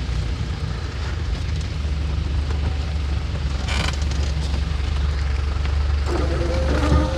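Car engine running with a steady low rumble, a short clatter a little after halfway through, and a brief pitched sound near the end.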